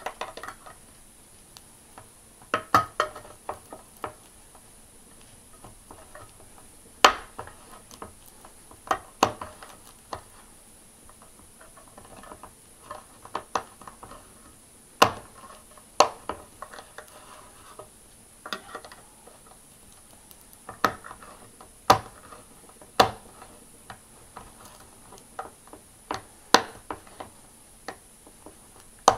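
Swiza D04 pocket knife's can opener working its way around a tin can lid: a sharp metallic click with each levering stroke, every second or two, with scraping between the strokes.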